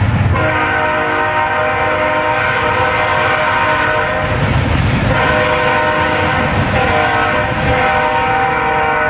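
BNSF diesel locomotive's air horn sounding a chord in long blasts, breaking off about four seconds in and again near the end before sounding once more, over the steady low rumble of the passing container train.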